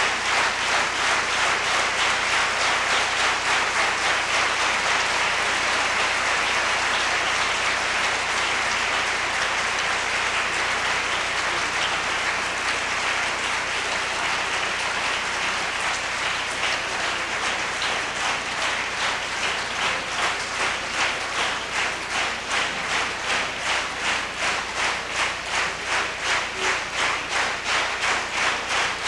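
Concert audience applauding, at first as a dense, scattered clatter. About halfway through it falls into unison rhythmic clapping at about two claps a second. Such clapping is an audience calling the performer back for an encore.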